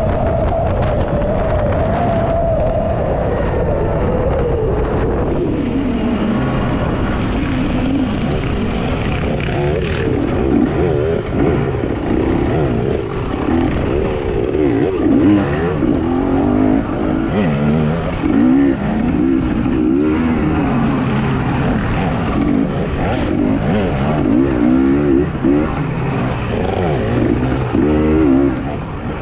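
Racing engine running hard. Its pitch slides down over the first few seconds, then rises and falls rapidly again and again as it is throttled on and off and shifted.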